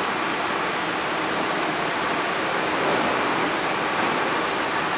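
Steady, even rushing noise in a metro station beside an MR-73 subway train standing at the platform.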